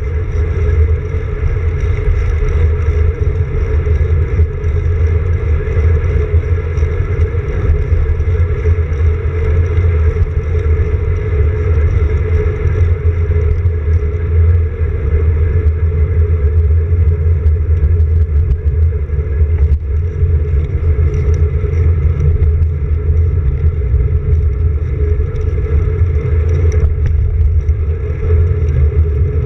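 Steady, loud low rumble of wind and road vibration picked up by a camera mounted on a road bike's handlebars while riding on asphalt, unbroken throughout.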